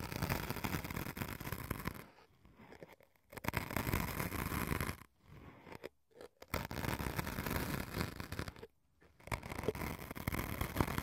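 Pointed tips scratching and scraping into white foam blocks: four long scratchy strokes of about one and a half to two seconds each, with short pauses between.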